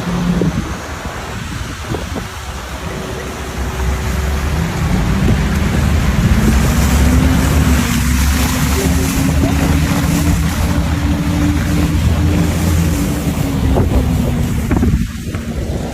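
A vehicle engine running under heavy wind rumble, its note rising slowly through the middle, with a brief drop in level near the end.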